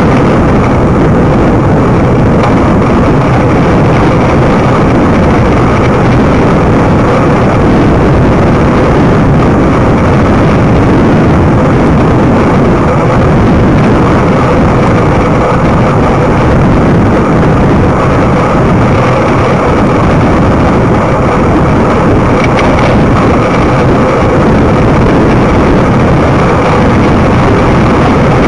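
Steady, loud wind rush over the microphone of a camera riding along on a moving bicycle, with road noise from the tyres underneath.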